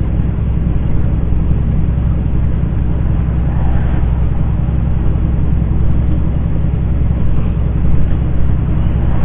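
Semi truck's diesel engine running steadily with a low drone as it pulls a heavy load slowly uphill.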